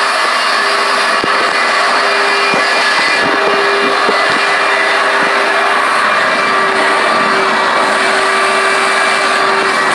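Heavy rain pouring down steadily, a loud, even hiss with no break.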